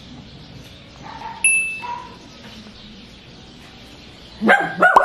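A small poodle starts barking and yelping near the end, territorial barking at something beyond the gate. Earlier, a single brief high chirp about one and a half seconds in.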